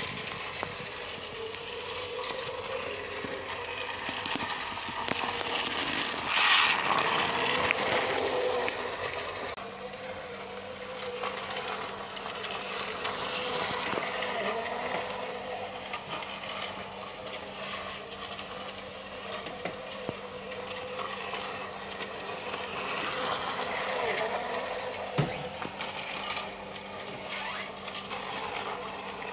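Battery-powered toy train's small electric motor whirring and its wheels rattling along plastic track, louder for a couple of seconds about six seconds in, with a single sharp click near the end.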